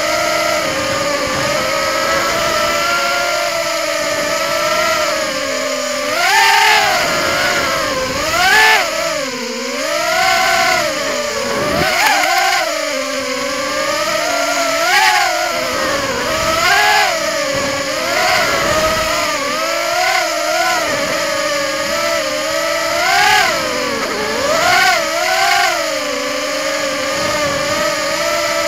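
Small FPV racing quadcopter's motors and propellers, heard through its onboard camera: a steady buzzing whine that repeatedly rises and falls in pitch as the throttle is punched and eased.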